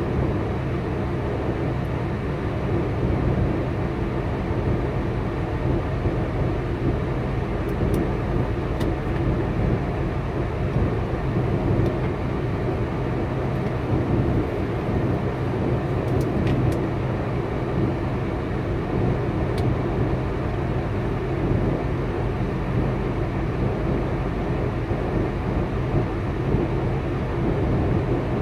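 Semi truck's diesel engine idling steadily, a low rumble with an even hum, heard from inside the cab.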